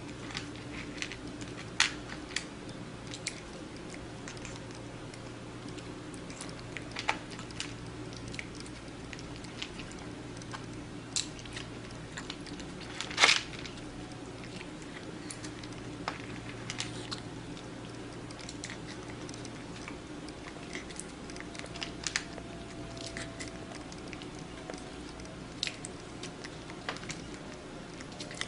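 A cat chewing and crunching food: irregular crisp crunches and clicks, a sharper one about halfway through, over a steady low hum.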